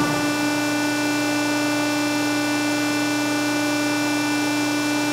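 Diacro 75-ton hydra-mechanical press brake's motor and hydraulic pump running with a steady whine and hum.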